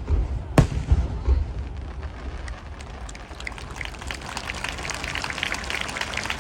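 Fireworks: a shell bursts with one sharp bang about half a second in over low rumbling booms. From about three seconds on, a dense crackle of many small pops sets in, like crackling stars.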